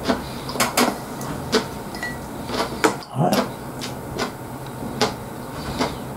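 Close-up chewing of mackerel sushi: irregular wet mouth clicks and smacks, roughly one or two a second, over a steady low hum.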